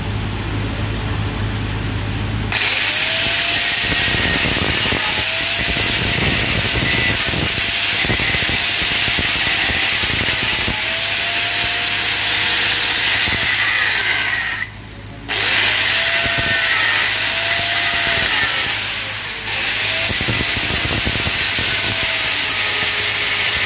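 Angle grinder grinding a steel pipe. It starts suddenly about two and a half seconds in, after a low hum, and its pitch sags as it is pressed into the metal and then recovers, over and over. It cuts out briefly about fifteen seconds in and dips again a few seconds later.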